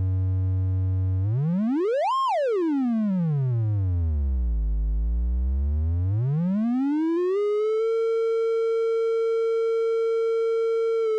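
Triangle-wave output of an Eowave Orage analog complex oscillator, a pure buzzy tone. It holds a low pitch, sweeps up quickly to a high peak about two seconds in and falls back to a very low growl, then glides up again and holds a steady mid pitch.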